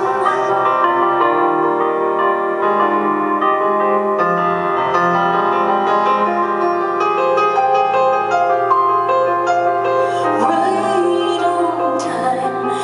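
Live piano and keyboard music in concert, a passage of many quick notes in the upper range.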